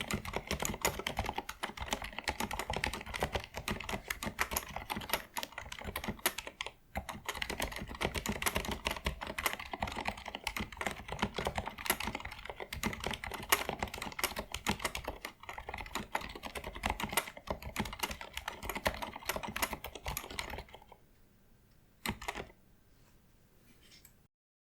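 Continuous fast typing on a Leopold 980M mechanical keyboard with Cherry MX Silent Red linear switches: a dense stream of keystroke clacks. It stops near the end, with one short burst of last keystrokes after a brief pause.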